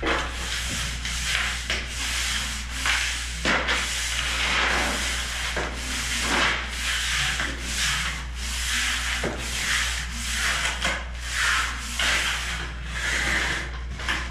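Steel trowel scraping and sliding over a freshly laid sand-cement mortar shower floor, smoothing the surface in repeated strokes about one a second, over a low steady hum.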